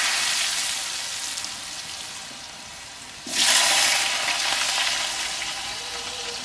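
Potato pieces frying in hot oil in an iron karahi, sizzling loudly and then settling. A second fresh burst of sizzling comes about three seconds in, as more pieces hit the oil.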